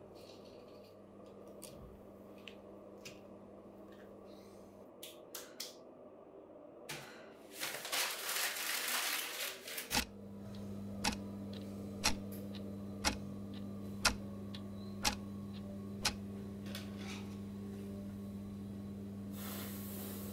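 A steady low hum with faint scattered clicks, a loud hiss of noise lasting about two seconds midway, then six sharp ticks about a second apart over a stronger hum.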